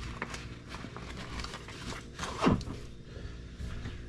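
Rustling and small clicks of tools and packaging being handled in a fabric tool bag, with one short, louder sound about halfway through that drops quickly in pitch.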